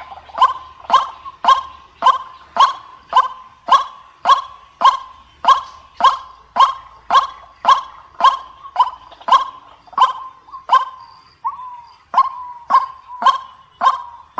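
White-breasted waterhen (ruak-ruak) calling: one short, harsh note repeated steadily about twice a second, with a brief break about 11 seconds in. This is a lure-call recording played to draw the birds in.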